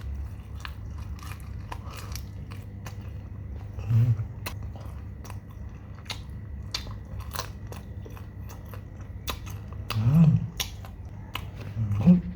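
Crunchy bites and close-up chewing of fried chicken, a stream of crisp crackling clicks. A person's short, low hums break in three times: about four seconds in, and twice near the end.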